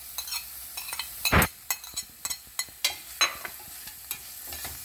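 A utensil knocking and scraping against a frying pan as julienned onion is stirred into hot olive oil with garlic, with a light sizzle under it. There are several sharp knocks, the loudest about a second and a half in.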